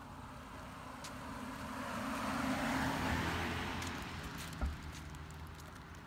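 A car passing on the street, its tyre and engine noise swelling to a peak about three seconds in and then fading away. A single short low thump follows just after.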